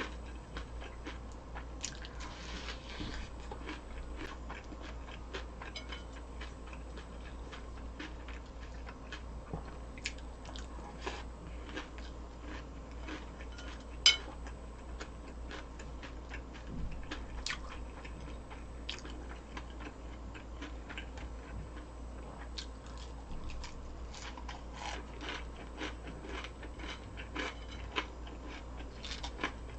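A person chewing and crunching food close to the microphone: many small crunches and mouth clicks throughout, with one sharp click about fourteen seconds in. A low steady hum runs underneath.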